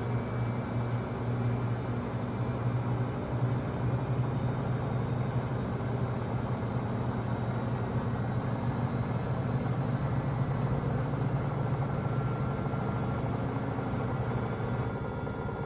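Samsung WW25B6900AW front-load washer giving off a steady loud buzz, a low hum with a rapid rattling flutter over it. The owner describes it as a buzz that comes with draining, loudest when the drain pump runs with no water left to drain.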